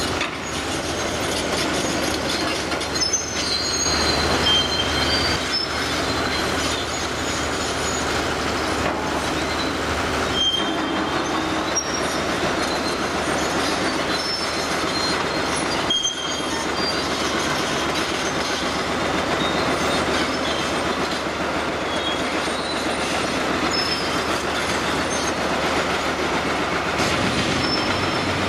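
Demolition excavators working through a gutted reinforced-concrete building: steady engine noise under continuous scraping and crunching of concrete rubble and steel, with short high metallic squeals scattered throughout and an occasional knock.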